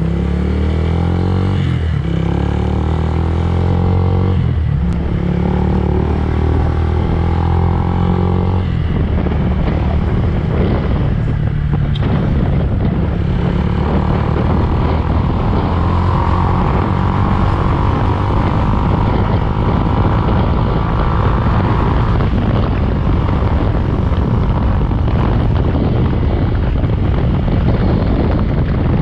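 Yamaha Fazer 150 single-cylinder motorcycle engine running steadily, its note shifting a few times in the first nine seconds and then settling into a dense, fast pulsing run.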